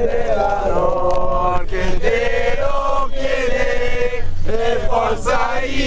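A coachload of Inter football supporters chanting a terrace song in unison, mostly men's voices, with long sung notes broken by short pauses.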